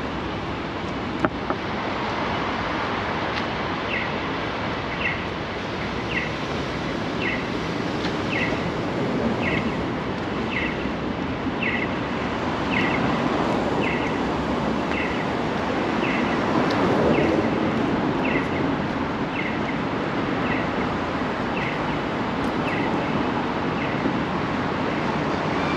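Steady city street traffic and construction-site noise. A short, high chirp that falls in pitch repeats about once a second from about four seconds in until near the end.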